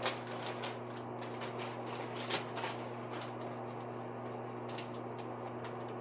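A few light clicks and rustles of small items being handled, the clearest near the start and about two and five seconds in, over a steady low hum.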